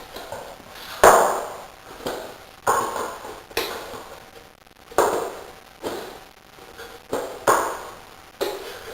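Metal tools striking hard in a rear tyre change: about ten sharp knocks, roughly one a second at uneven spacing, each with a short metallic ring.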